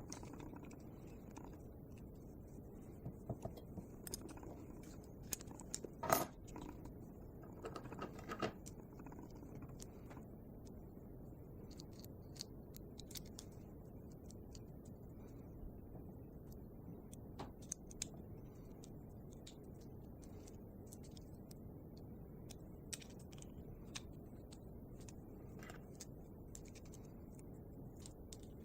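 Faint, scattered clicks and clinks of small metal engine parts and hand tools being handled on a table as a model diesel engine is put back together, with the loudest clink about six seconds in and a short cluster around eight seconds.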